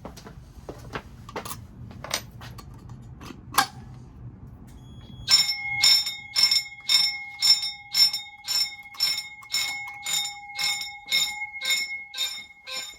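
Scattered clicks and knocks of handling for about five seconds. Then a fire alarm starts sounding in march time, pulsed on and off by a relay timer about twice a second, with a steady ringing tone carrying on between the pulses.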